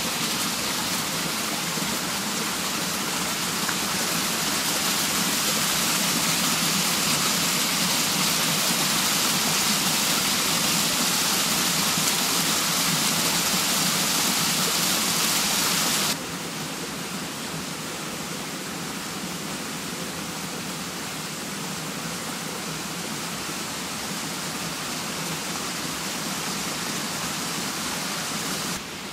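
Water pouring and splashing through an overshot waterwheel: a steady, loud rush that drops suddenly to a softer, duller rush a little over halfway through.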